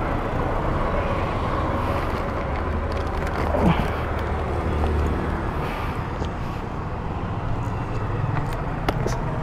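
Steady rumble of street traffic, with a low swell of a vehicle passing and a brief falling tone about three and a half seconds in.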